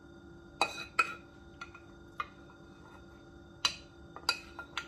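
Metal spoon clinking against a frying pan and glass plate as sauced penne is spooned out: about nine sharp clinks with brief ringing, the loudest two near the start and a quick cluster near the end, over a steady faint hum.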